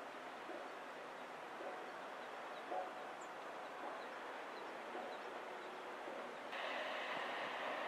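Steady outdoor hiss of wind and open water, with a few faint, brief distant bird calls. About six and a half seconds in the hiss steps up suddenly and gets louder.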